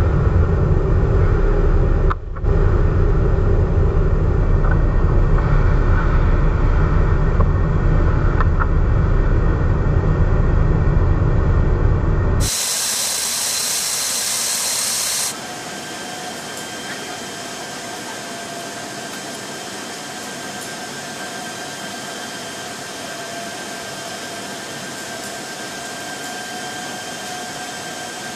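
Steady in-flight noise of a military transport aircraft. A loud, deep rush of wind and engines drops out briefly about two seconds in. Near the middle it gives way to a steadier cabin hiss with a faint steady whine.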